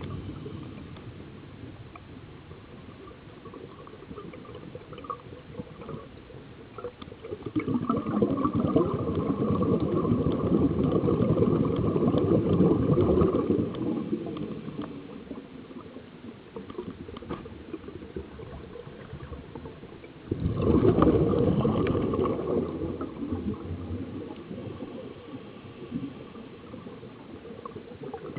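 Scuba diver breathing through a regulator underwater: two long bursts of exhaled bubbles gurgling and rushing, one about eight seconds in lasting some six seconds and another about twenty seconds in, with quieter stretches between breaths.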